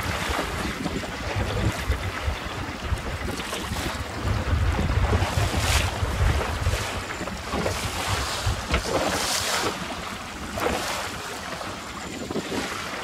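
Wind buffeting the microphone over the rush of choppy sea and the wake of a small boat under way, with its outboard motor running underneath. The sound is a steady, noisy rumble and hiss with uneven gusts.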